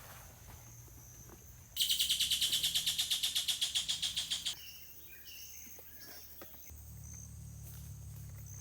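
A loud, rapid pulsed trill from a wild creature, about nine pulses a second, lasting nearly three seconds, over quiet outdoor background. A low steady hum comes in near the end.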